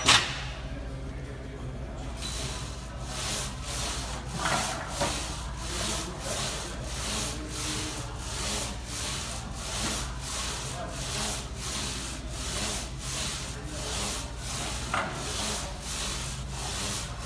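A set of reps on a plate-loaded leg press: rhythmic rasping strokes, about two a second, with a sharp knock at the very start.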